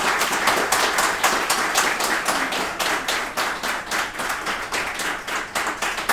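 A roomful of people applauding, the clapping thinning out and fading toward the end.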